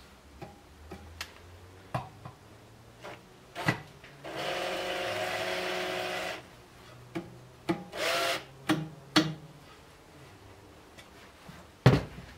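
Cordless drill-driver running for about two seconds as it drives a screw into the trainer's plastic housing, then a second short burst. Scattered clicks and knocks of the plastic cover being handled, with one loud knock near the end.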